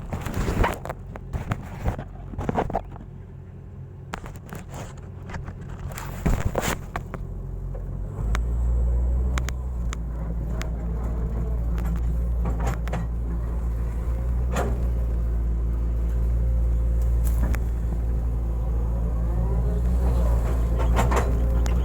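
Hitachi excavator's diesel engine running low with scattered sharp knocks. About eight seconds in it rises suddenly to a louder, steady deep drone, with occasional knocks on top.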